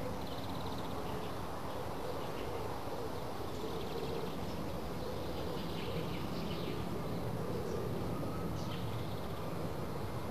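Faint, scattered bird chirps and a short trill over a steady rushing background noise.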